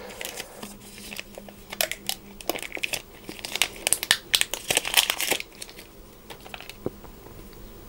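Plastic protective wrapping being peeled and crinkled off a small power adapter: a dense run of crackles that thins out after about five and a half seconds, with a lone click near the end.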